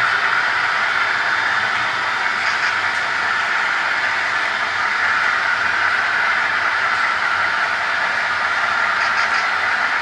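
Model freight train rolling past on its track: a steady rushing wheel-and-track noise, with two brief clusters of quick clicks.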